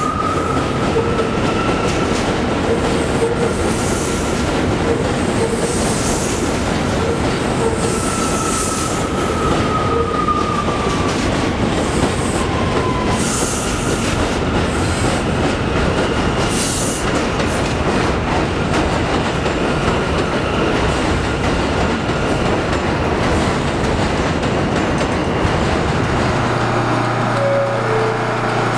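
Bombardier R179 New York City subway train running past along an elevated platform: a steady rumble with wheel clatter on the rails. Over it a high whine drifts slightly up and then glides down, fading about twelve seconds in. Near the end the sound changes abruptly to the hum of an underground station.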